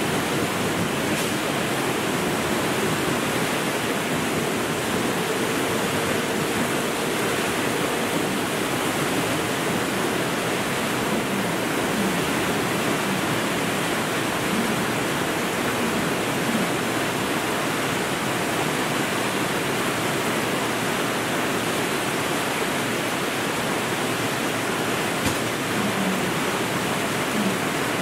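Torrential cloudburst rain pouring steadily, a dense, even hiss.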